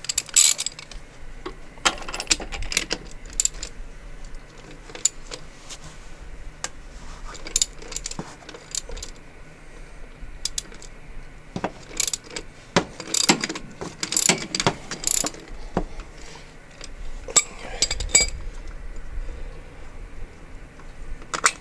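Ratchet wrench clicking in several short bursts, working a socket on the oil drain plug of a 1984 Honda TRX200 ATV.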